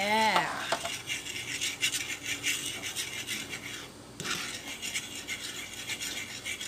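Metal fork scraping and stirring eggs in a nonstick frying pan: quick, repeated scrapes against the pan, with a brief pause about four seconds in.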